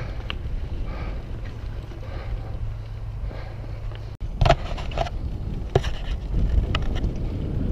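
Wind rumble on a helmet-mounted microphone with tyre noise from a downhill/freeride mountain bike rolling fast over a gravel track. After a brief break about four seconds in, a handful of sharp knocks and rattles as the bike hits bumps on the grassy singletrack.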